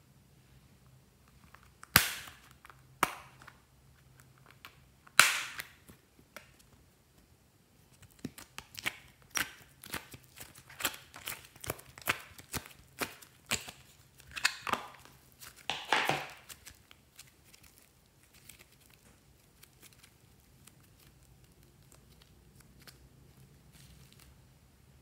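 Sticky slime pressed and pulled by hand, popping sharply: a few single pops, then a quick run of pops and crackles for several seconds.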